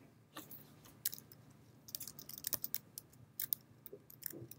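Faint typing on a computer keyboard: irregular key clicks, some single and some in quick little runs.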